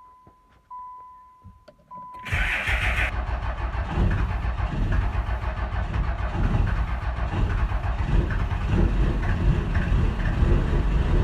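A steady electronic beep with a few clicks, then about two seconds in a 12-valve Cummins diesel cranks and fires on a hard cold start. It runs rough and grows louder as it catches. The hard start comes from an intake heater grid that is not working, traced to a broken relay wire.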